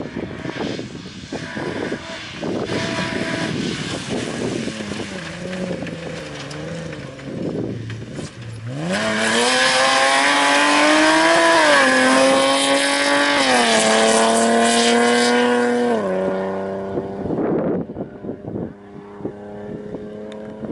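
Mitsubishi Pajero rally 4x4 approaching on a dirt stage, then passing close under hard acceleration, its engine revs climbing, dropping at a gear change and climbing again. It is loudest as it goes by, the revs step down about two thirds of the way in, and the sound fades as the car drives away.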